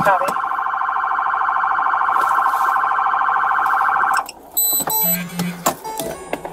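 Police car siren sounding in a fast, rapidly warbling yelp, heard from inside the patrol car's cabin. It cuts off suddenly about four seconds in and is followed by a few short electronic beeps and clicks.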